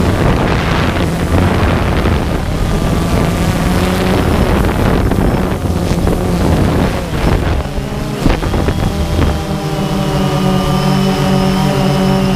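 Multirotor drone's motors and propellers droning steadily, mixed with rough wind buffeting on the microphone. About nine seconds in, the buffeting eases and the steady whine of the motors comes through more clearly.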